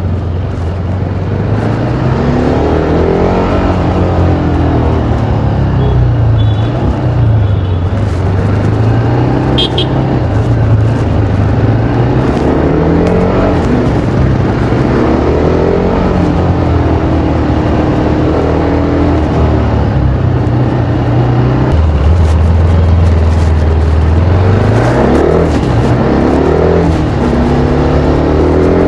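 TVS Apache RR310's stock exhaust from its single-cylinder engine under way, the pitch rising as it pulls through each gear and dropping back at each shift or roll-off, over and over.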